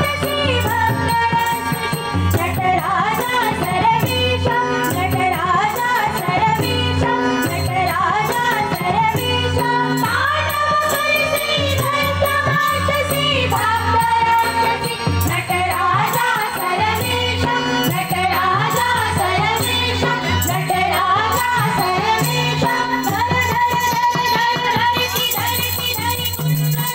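Women's bhajan group singing a devotional song through microphones, with a steady held-note instrumental accompaniment underneath.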